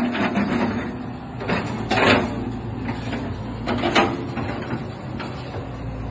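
Hitachi hydraulic excavator running steadily, with short loud surges from its hydraulics as the control levers are worked, about every two seconds.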